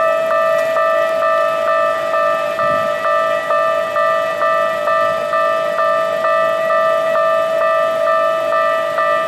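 Japanese level-crossing warning bell ringing continuously: an electronic clang repeating about twice a second over a steady held tone, showing that the crossing is closed for an approaching train.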